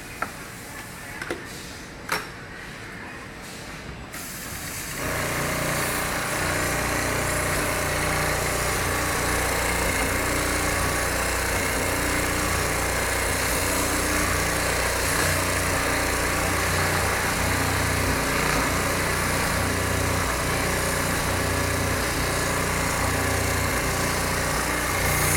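A few sharp clicks, then about five seconds in the Garudan GPS 6032 programmable pattern sewing machine starts and runs steadily, stitching a safety-shoe upper clamped in its template.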